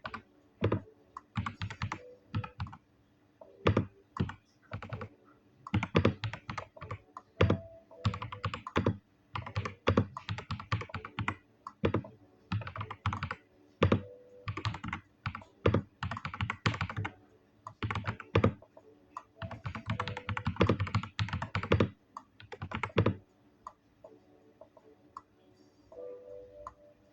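Typing on a Vortex Mono 75 mechanical keyboard with JX Jade White switches: runs of keystroke clicks with short pauses between them, stopping about 23 seconds in, with a few faint taps near the end.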